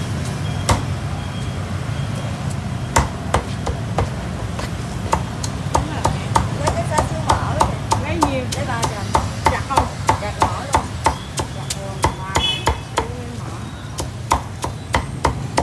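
Meat cleaver chopping through roast pork on a chopping block: a run of sharp chops, coming faster from about nine seconds in, over a steady street hum.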